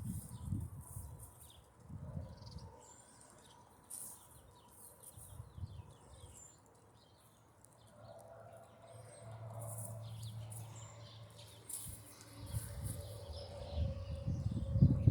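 Chickens calling amid many short, high chirps, with low thumps coming and going.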